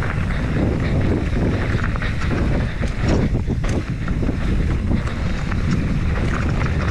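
Wind buffeting the microphone of a mountain bike on a trail ride, over a rumble of tyres rolling on dirt, with scattered clicks and rattles from the bike.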